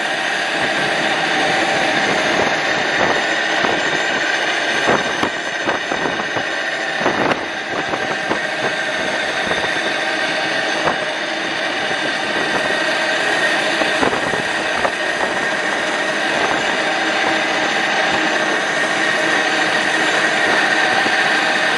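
Open tarabita cable-car cage travelling along its steel cable: a steady rushing whir with a faint held tone, and a few scattered clicks.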